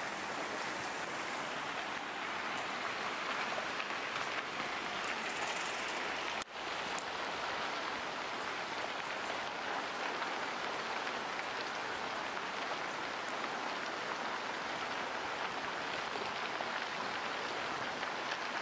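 Steady rain-like rushing and rattle of rock debris pouring down a slope in an ongoing landslide, briefly broken about six and a half seconds in.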